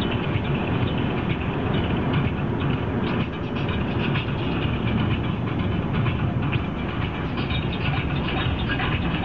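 Steady road and engine noise inside a car's cabin as it drives downhill, with a light, irregular rattling over it.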